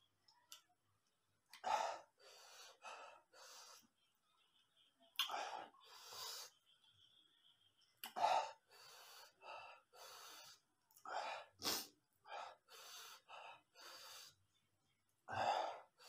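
A man breathing hard and noisily through his mouth, with sharp gasps and hissing exhales in clusters every few seconds. This is the reaction to the chilli burn of very spicy fire noodles.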